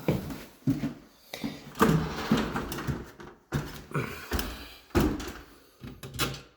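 Irregular thumps and knocks, several a second at times, of someone walking and opening a door.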